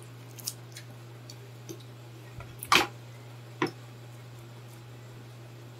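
Crispy fried pork lung and intestine crunching and crackling in short, sharp snaps. There are a few faint ticks in the first two seconds, then two loud crunches about a second apart near the middle, over a steady low hum.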